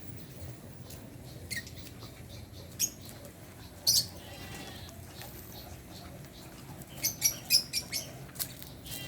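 Birds chirping: short, sharp, high chirps, single ones a few seconds apart and then a quick run of several near the end.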